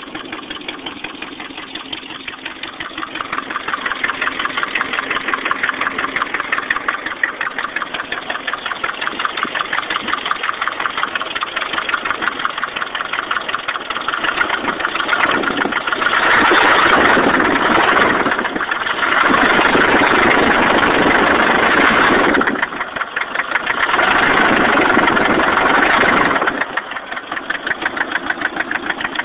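Nissan KA24E 2.4-litre four-cylinder engine idling with a fast, steady, rhythmic knock or tick, revved up three times in the second half. After a head rebuild following overheating, the owner is unsure whether it is rod knock or lifters that need bleeding.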